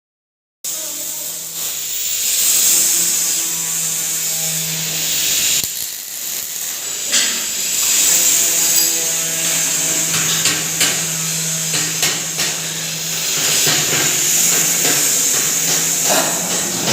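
A pulverizer grinding machine running steadily: a constant hum under a strong high hiss, with a few sharp clicks.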